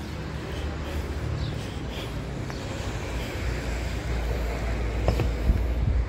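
Wind buffeting a phone's microphone outdoors: a steady low rumble.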